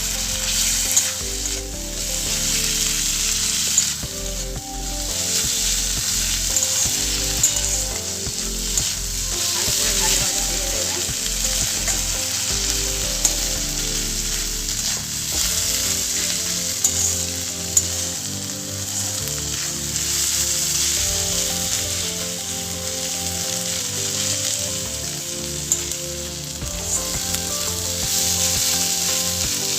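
Onions and ginger paste sizzling steadily in hot oil in a pan, stirred with a spatula that clicks and scrapes against the pan every few seconds.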